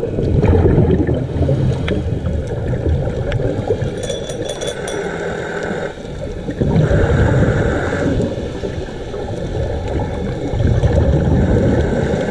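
Underwater scuba-diving sound: muffled gurgling and rushing of a diver's regulator breathing and exhaled bubbles, swelling louder every few seconds.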